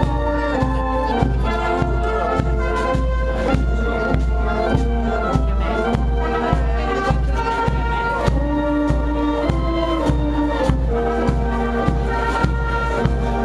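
Marching brass band with tubas playing a march, sustained brass notes over a steady, even beat.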